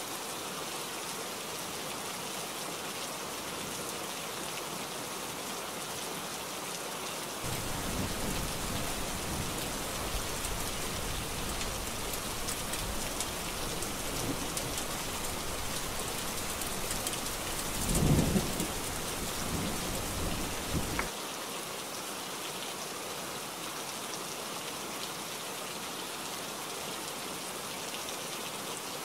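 Steady heavy rain throughout. About a quarter of the way in, a long rumble of thunder joins it, swells to a loud crack about two-thirds of the way through, and cuts off suddenly soon after.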